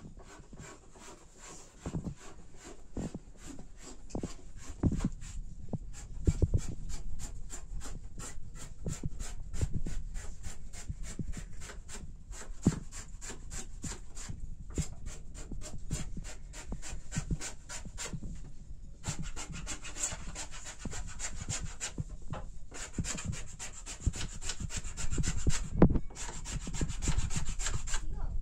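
A hand tool working wood with quick, repeated back-and-forth strokes, like rasping or sawing a timber blank, broken by a few short pauses and growing harsher in the second half.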